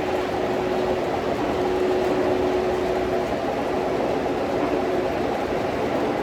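O scale model train running on the layout track: a steady rolling rumble with a thin motor hum that fades in and out.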